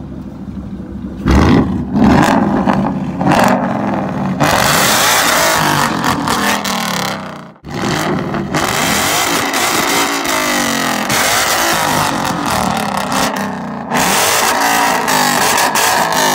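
Ford Mustang GT's 5.0-litre V8 idling, then revved hard while parked. It gives a few sharp blips first, then long high revs that rise and fall, broken by a brief drop-out about seven and a half seconds in.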